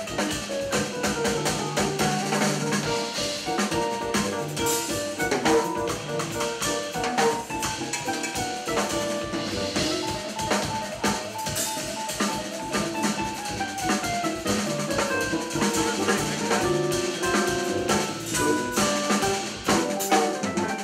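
Live jazz trio playing, a drum kit keeping time under running melodic lines, with piano and bass.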